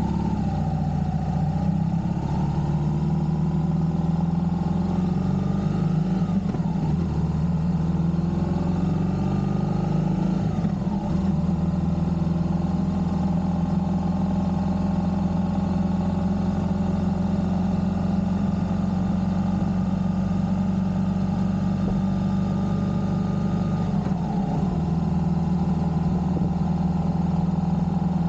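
Engine of a road vehicle under way, heard on board with steady road noise. Its pitch climbs twice in the first ten seconds or so, dropping back after each climb, as it accelerates through the gears, then holds fairly steady at cruising speed.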